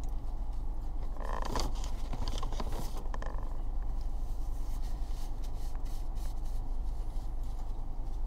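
Paper sandwich wrapper rustling and crinkling in short bursts about one to three seconds in, with small scattered ticks afterwards, over a steady low hum in a car cabin.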